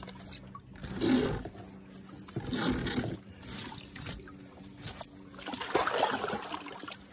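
Water trickling and splashing in irregular bursts as a wet braided tow rope is pulled out of a wave runner's jet intake, with a sharp click about five seconds in.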